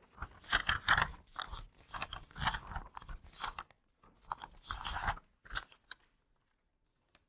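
Sheets of paper rustling as they are moved and shuffled, in a string of irregular bursts that stop about six seconds in.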